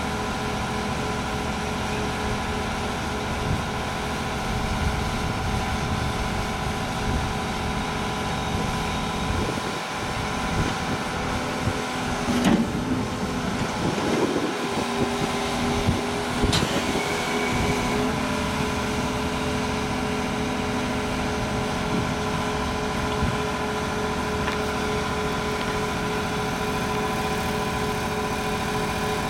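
Volvo EC380E L tracked excavator's 13-litre six-cylinder diesel engine running steadily while the arm and bucket work. Around the middle the engine note shifts and slides under hydraulic load for a few seconds, with a couple of sharp knocks.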